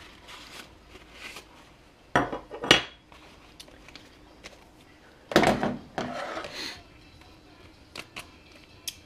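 Hands at a workbench handling small metal parts and a shop towel: rustling and clinking, with two louder bursts of handling noise about two and five seconds in and a couple of light clicks near the end.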